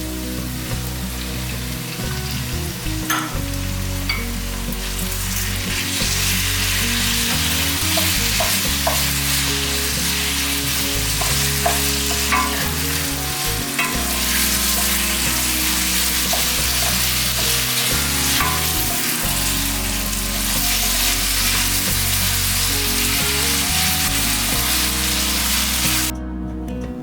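Food sizzling in a hot frying pan as it is stirred, with occasional clicks of the utensil against the pan; the sizzle grows louder about five seconds in and stops abruptly near the end.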